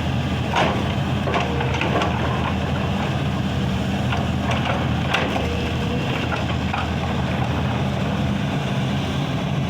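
Heavy diesel engine of an excavator running steadily, with a few irregular knocks and clatters of rock in the first half.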